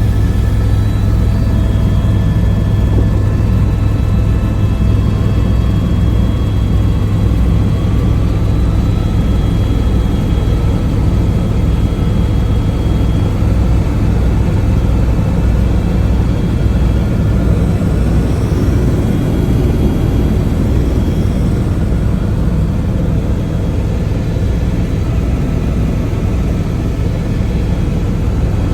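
Helicopter running steadily in flight: a loud, constant low drone from the rotor and engine, with faint steady whining tones above it.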